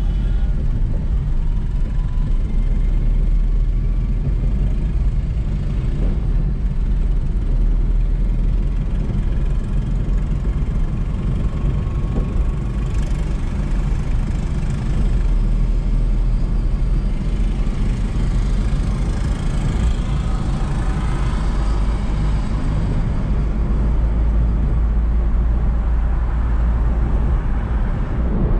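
Steady low rumble of a car being driven along an open road: engine and tyre noise at cruising speed.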